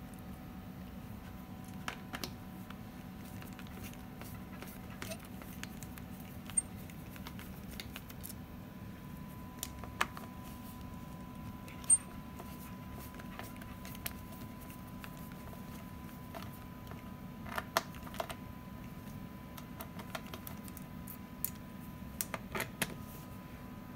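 Hand screwdriver working the steel screws out of an ATM chassis guide rail: scattered sharp metallic clicks and ticks, a few of them in quick clusters, over a steady low hum.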